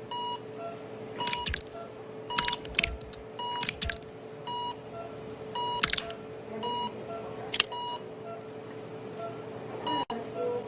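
Short electronic beeps repeating a little under once a second over a steady hum, with several sharp clicks, most of them in the first four seconds.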